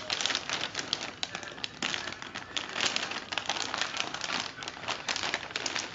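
Clear plastic bag crinkling and crackling as hands handle and press it, a dense, irregular run of crisp crackles.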